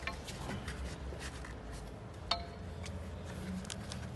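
Screwdriver scraping and prying at the masonry where a metal pipe meets a wall, working to free a trapped cat's paw. There are faint scattered clicks and one sharp metallic clink with a short ring about two seconds in.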